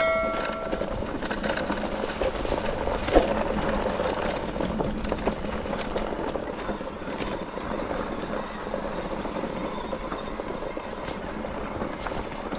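Mountain bike rolling along a trail: a steady rolling noise with small rattles and clicks, and a sharp knock about three seconds in. A bell-like ring fades out in the first second.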